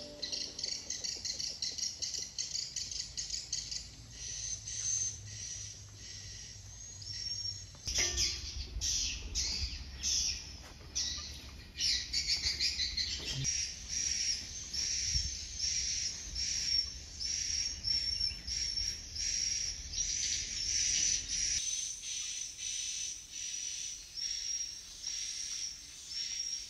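Rural ambience of birds chirping, with insects faintly in the background. In the second half a high chirp repeats evenly about once a second, and the sound changes abruptly twice where the recordings are cut together.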